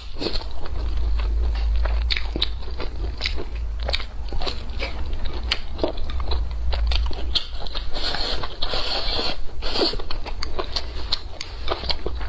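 A person biting and chewing crunchy food close to the microphone: irregular crisp crackling crunches, with a denser stretch of crunching about eight seconds in.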